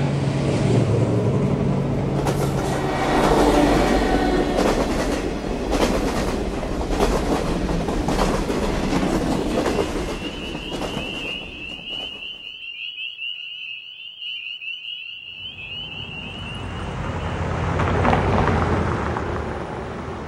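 A run of ambience recordings: about ten seconds of loud rumbling noise with a clattering rhythm, then a steady high wavering chirp that stands alone for a few seconds, then a rush of noise that swells and fades.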